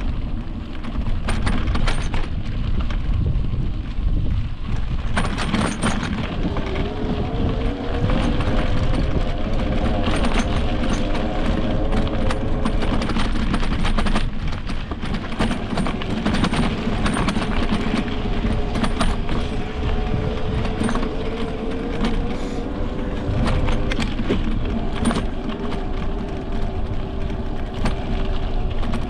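Electric mountain bike being ridden on a rough dirt trail. The motor's whine rises and falls in pitch from about six seconds in, over a constant low rumble, with frequent rattles and knocks from the bike.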